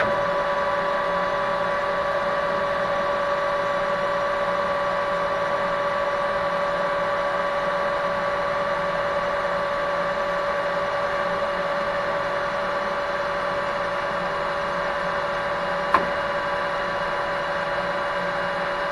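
Metal lathe running at a steady speed, its spindle and gear train giving a constant whine of several tones as the carriage feeds the tool along the shaft. A single sharp click near the end.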